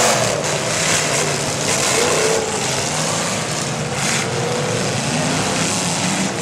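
Engines of several demolition derby cars and pickups running loud and revving hard, the pitch rising and falling as they push against each other in a pileup.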